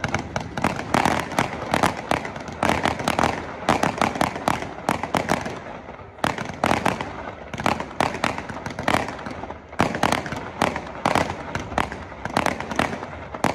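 Fireworks display: rockets and aerial shells bursting overhead in a dense, unbroken string of bangs and crackles, several a second.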